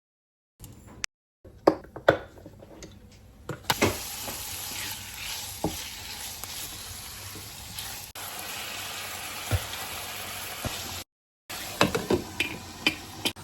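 Food sizzling as it fries in a pan, a steady hiss that starts about four seconds in. Several sharp knocks and clicks come before it and are scattered through it, the loudest of them near the start.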